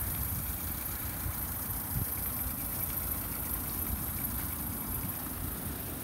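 Vauxhall Vivaro van's 1.6-litre diesel engine idling steadily.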